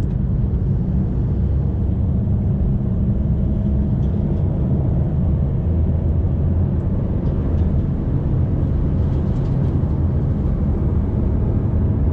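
Fiat Toro Volcano turbodiesel pickup cruising: a steady low engine drone with road noise, and a faint tone that slowly rises in pitch through the middle.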